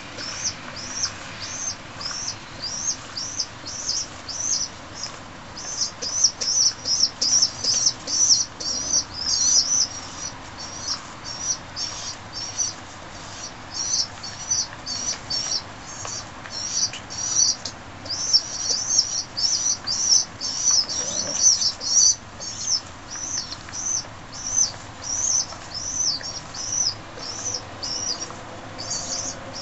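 Feral pigeon squabs squeaking to beg for food: a long, unbroken run of thin, high peeps, about two or three a second, busiest in two stretches.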